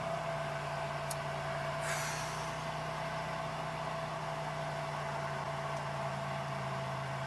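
2002 Chevy Malibu engine idling steadily with the air conditioning on, heard from inside the cabin: an even low engine hum under the blower fan's rush and a faint steady whine. A faint click about a second in and a brief hiss about two seconds in.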